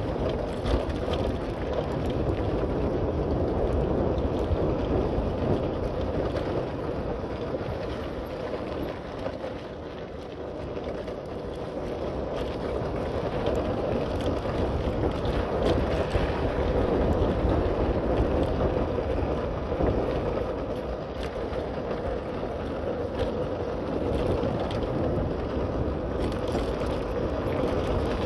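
Wind rushing over the microphone with steady rolling rumble from a bicycle being ridden, swelling and easing in level and dipping briefly about a third of the way in.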